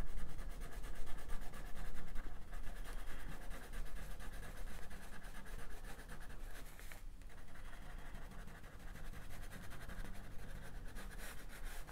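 Wax crayon scribbling on paper in quick back-and-forth shading strokes, with a short pause about seven seconds in.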